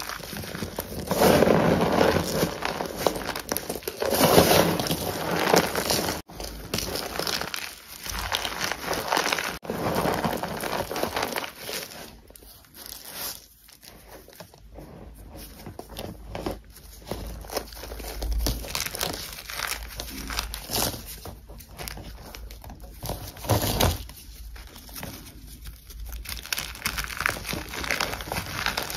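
Lumps of gym chalk crushed and crumbled in the hand: a dry, crunchy crumbling that comes in irregular squeezes. It is quieter for a stretch in the middle.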